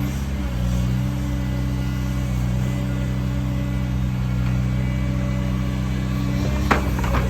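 Diesel engine of a JCB 55Z-1 midi excavator running steadily. A sharp metallic clank comes near the end, followed by a fainter one.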